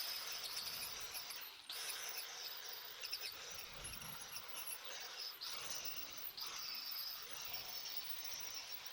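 Power-driven wire wheel scrubbing rust off steel front-end suspension parts: a steady, high scratching hiss with a few brief breaks, fading near the end.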